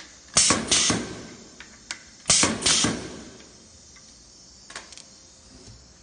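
Pneumatic vial crimping machine cycling twice: each cycle is a pair of short, sharp air hisses as the air cylinder drives the crimping head down and then returns it. A few small clicks follow.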